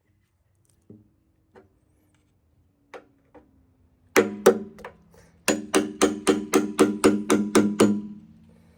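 Hammer striking a part stuck fast to a Chevy 350 engine: a few light taps, then a rapid run of hard blows, about four a second, each with a metallic ring. The part will not come off because it has been glued down with sealant.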